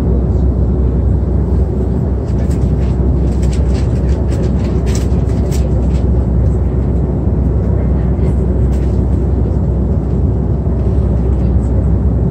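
Steady, loud low rumble of an Airbus A330 airliner heard from inside the passenger cabin, with faint light clicks and rattles over it.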